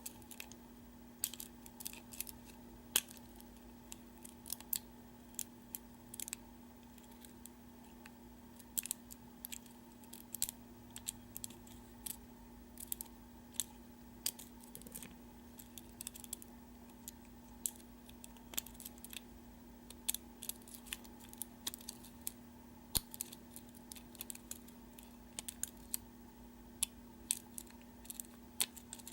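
Faint, irregular metal clicks and ticks from a lock pick and tension wrench working the spool pins of a Master Lock 570 padlock during single pin picking, over a steady low hum.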